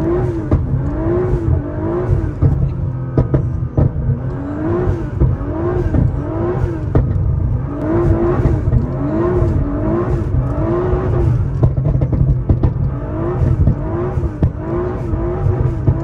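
Nissan GT-R R35's twin-turbo V6, heard from inside the cabin while the car is driven on snow. The revs rise and fall about once a second over a steady low rumble, with a few sharp knocks.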